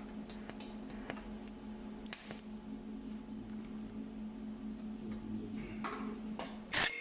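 A steady low machine hum with scattered light ticks; the hum stops near the end and one sharp click follows.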